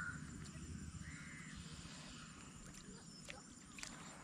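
Crow cawing a couple of times over a steady low rumble, with two short sharp clicks near the end.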